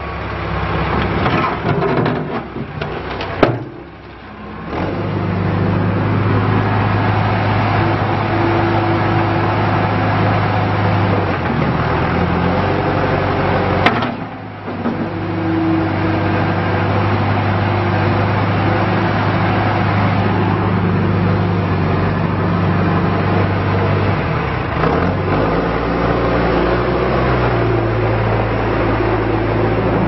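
John Deere 310SE backhoe loader's four-cylinder diesel running steadily under hydraulic load as the loader bucket is raised. Two sharp clicks, about three and a half seconds in and around fourteen seconds, are each followed by a brief dip in the engine sound, and the engine note shifts shortly before the machine moves off.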